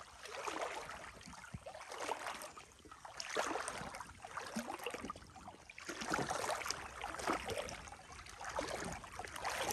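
Wading through a shallow creek: water swishing and splashing around the legs in repeated surges, about one stride every second or so.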